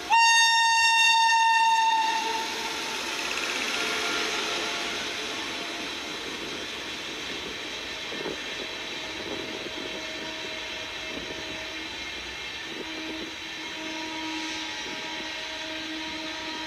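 Indian Railways WAP7 electric locomotive sounding its horn in one long, loud blast of about two seconds. The passenger coaches then roll past with a steady rail noise and faint humming tones.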